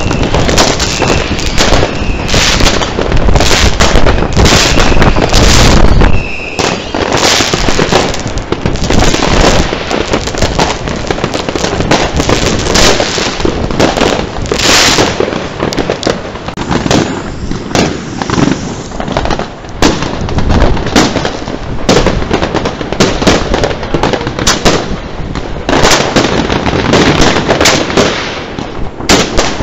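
Dense, continuous banging and crackling of consumer fireworks and firecrackers, many reports overlapping, heavier and deeper for the first six seconds. A few short high whistles sound among the bangs early on.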